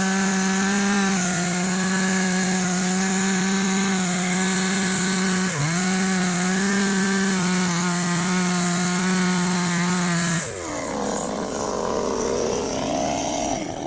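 Two-stroke chainsaw running at high revs, its engine note steady apart from a brief dip about five and a half seconds in. About ten and a half seconds in the steady note gives way to a rougher, lower, wavering sound.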